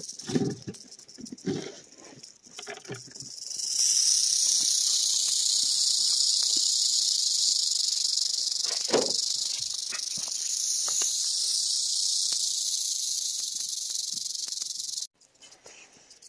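Eastern diamondback rattlesnake buzzing its tail rattle in a defensive warning: a steady, dry, high buzz that swells sharply about three seconds in and stops suddenly near the end.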